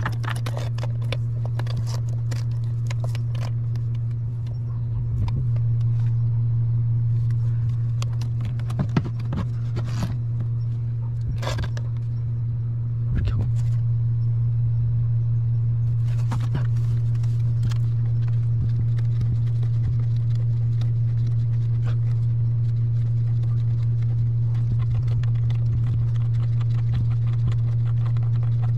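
A steady low machine hum runs throughout, with scattered clicks, rattles and scrapes as a braided stainless-steel shower hose and fittings are handled.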